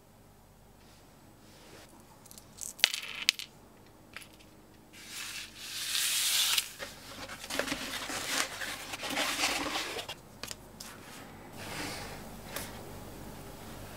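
Small metal hardware, snap fasteners and a split key ring, clinking in a few sharp clicks about three seconds in. Then a paper pattern is rubbed and slid across a cutting mat, a loud scraping rub around six seconds, with more rubbing and scratching after it as a scratch awl traces the pattern onto leather.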